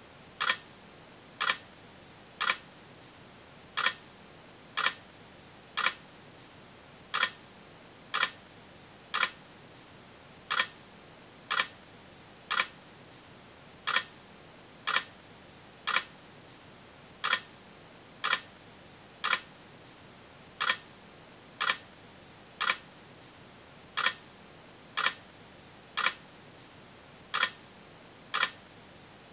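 Sharp clicks in a steady rhythm, about one a second, falling into groups of three with a slightly longer gap after each group, over a faint hiss.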